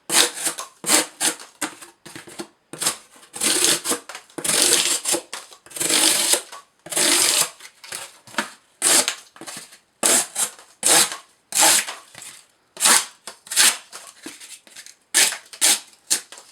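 Emerson Mini Commander folding knife slicing through cardboard in repeated cutting strokes, about one or two a second, with a few longer drawn cuts a few seconds in.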